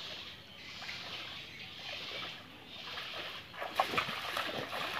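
Wading steps sloshing through shallow floodwater, then about four seconds in a sharp double splash as a multi-pronged fishing spear is stabbed into the water.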